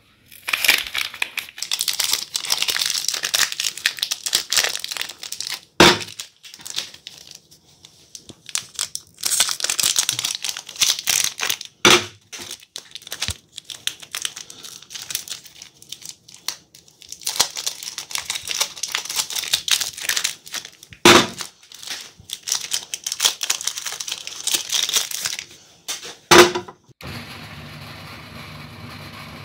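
Soap wrappers being torn open and crinkled in four long stretches, each ended by a sharp clack as a bare bar is set down on the plate. Near the end a steady electric-motor hum starts: the meat grinder running.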